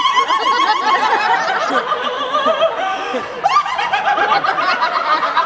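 Audience laughing at a stage show, many voices overlapping, with a fresh wave of laughter about three and a half seconds in.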